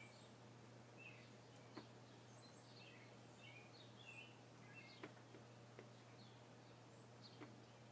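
Near silence with faint bird chirps in the background, a steady low hum and a few faint clicks.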